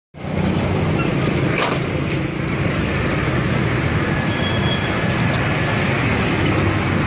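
Street ambience: a steady rumble of road traffic, with faint, thin high tones coming and going over it.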